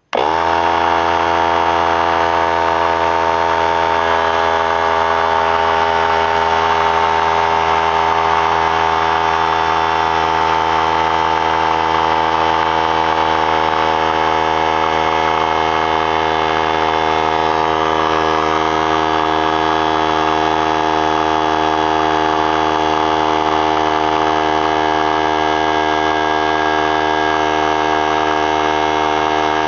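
3-gallon pancake oilless air compressor switching on and running loud, its motor spinning up in a split second to a steady hum as it pumps the closed tank up toward 100 psi.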